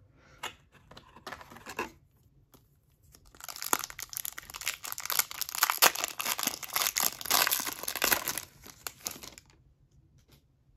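Foil wrapper of a trading-card pack being torn open and crinkled, a dense crackling that lasts about six seconds and stops abruptly. It is preceded by a few faint clicks as the pack is taken from the box.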